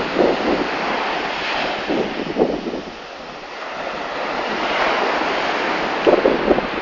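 Sea surf washing and breaking, with wind buffeting the microphone in gusts. The surf swells and eases, softest about three seconds in.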